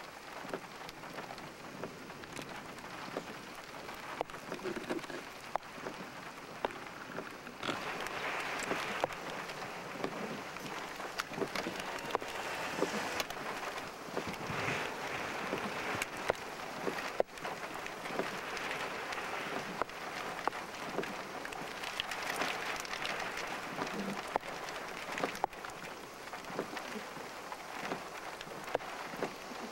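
Steady rain hissing, with many single drops ticking sharply on a nearby surface. It gets heavier from about eight seconds in.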